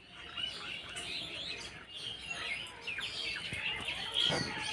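Small birds chirping and tweeting, many short calls overlapping throughout, with one brief louder knock near the end.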